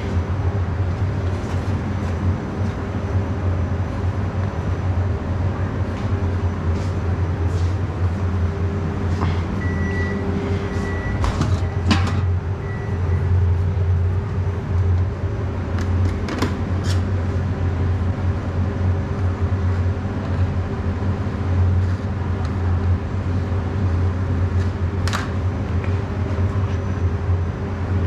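Steady low hum of kitchen machinery, with a few light clicks and knocks of steel pans and utensils being handled at a stainless steel prep counter, the sharpest about twelve seconds in.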